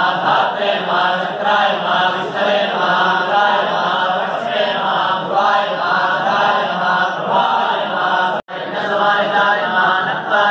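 A group of priests chanting the names of Shiva in unison, a steady Sanskrit litany recited from sheets. The sound drops out for an instant about eight seconds in.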